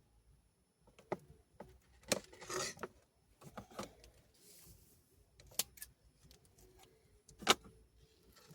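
Metal drawer slide being handled and positioned against a container: scattered clicks and knocks, with a brief rattle about two seconds in and a sharp click near the end.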